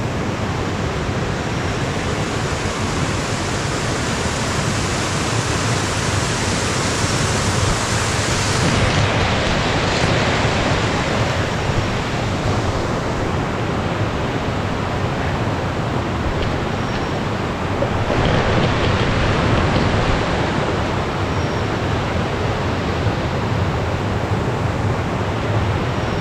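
Shallow, rocky forest stream flowing: a steady, even rush of water.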